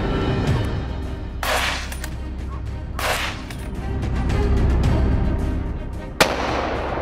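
Three gunshots over background music: two about a second and a half apart, then a sharper, louder shot near the end that rings out afterwards.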